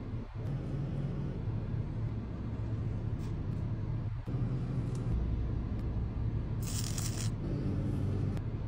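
Steady low hum of a car idling, heard inside the cabin. About seven seconds in there is a brief crackle.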